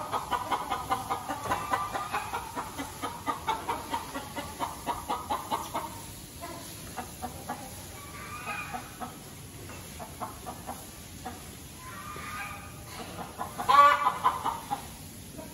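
Chickens clucking: a quick run of repeated clucks for about the first six seconds, then a few separate, longer calls, the loudest shortly before the end.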